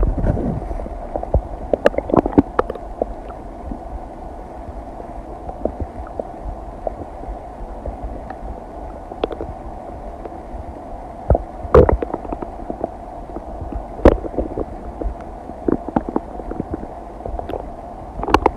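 Human stomach and intestines gurgling while digesting food: a continuous low rumble scattered with many small pops, with louder gurgles about twelve and fourteen seconds in.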